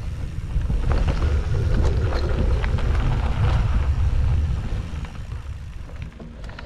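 Wind buffeting the microphone and mountain-bike tyres rolling over a dirt trail, with scattered clicks and rattles from the bike. It is loudest for the first few seconds and eases near the end.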